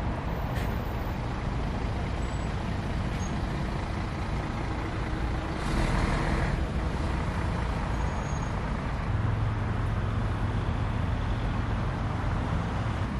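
Road traffic passing on a roundabout: steady engine and tyre noise, with a short hiss about six seconds in and a low steady engine hum over the last few seconds.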